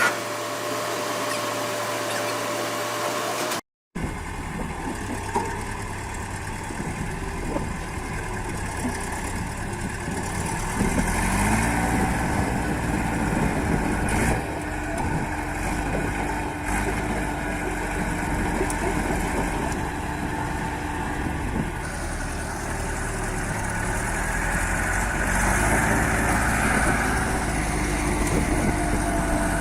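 Heavy machinery engine running, its revs rising and falling at times, with a brief gap of silence about four seconds in.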